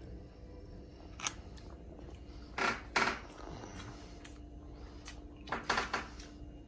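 Plastic spoon scraping and stirring rice in a plastic tub: a short scrape about a second in, then two longer bursts of scraping around three seconds and near the end.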